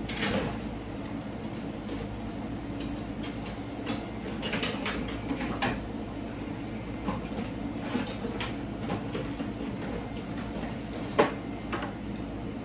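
Steady low hum under scattered light clicks and knocks of pots, lids and utensils, with one sharper knock about eleven seconds in.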